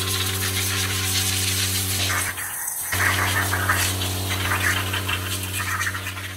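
Electric pressure washer running, its motor humming steadily while the wand sprays water with a loud hiss onto black plastic TV casing. The motor and spray cut out for about half a second, a little over two seconds in, as the trigger is let go, then start again.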